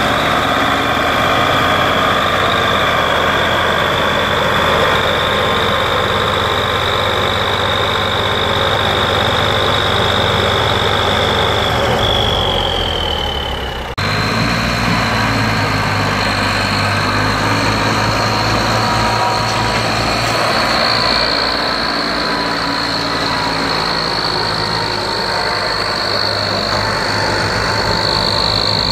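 Ford 3610 three-cylinder diesel tractor engine running steadily under heavy load, towing a second tractor and a loaded fodder trolley, with a steady high whine over the engine. The sound changes abruptly about halfway through.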